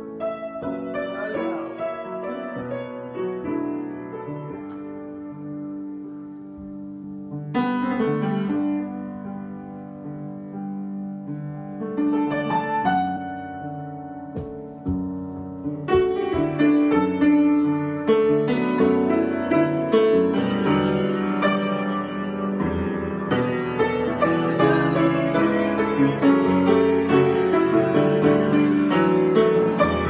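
Solo grand piano improvisation: chords and runs, fairly soft at first, growing louder and fuller from about halfway through.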